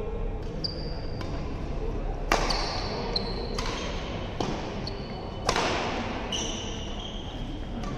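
Badminton racket strikes on a shuttlecock during a rally, four sharp hits a second or so apart, two of them loud, ringing briefly in the hall. Short high squeaks of court shoes on the synthetic court mat come between the hits.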